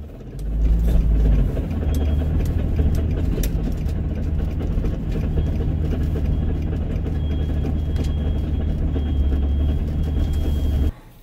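Nissan 350Z's supercharged V6 running and road noise heard from inside the cabin while driving. The engine note swells and rises briefly about a second in, then holds a steady drone until it cuts off abruptly near the end.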